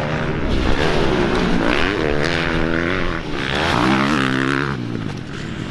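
Motocross bikes racing, their engines revving up and dropping back several times as they accelerate and shift.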